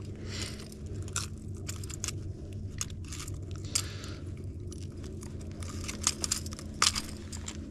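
Metal fishing pliers clicking and jangling against a lure's treble hooks in irregular sharp ticks as the pliers, snagged in the hooks, are worked free.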